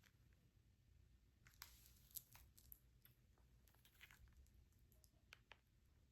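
Near silence: room tone with a few faint, scattered clicks and ticks.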